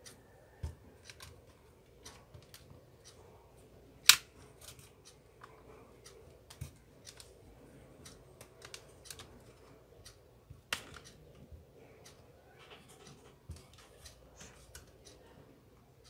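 Plastic snap clips of a Lenovo tablet's back cover clicking and cracking as a plastic prying tool is worked around the edge to open the case, with light scraping. Two sharp snaps stand out, about four seconds in and again about eleven seconds in.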